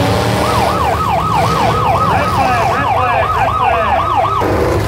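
Siren in a fast yelp, about three and a half rapid rise-and-fall sweeps a second, cutting off suddenly near the end, over the low running of derby car engines.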